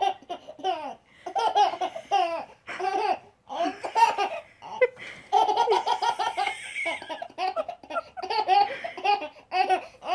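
A young child laughing hard, in repeated high-pitched bursts of giggling with short breaths between them.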